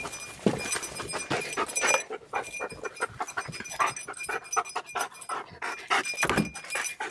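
A detection dog panting and sniffing in quick, short, irregular breaths as it works along a car searching for the scent of hidden ivory.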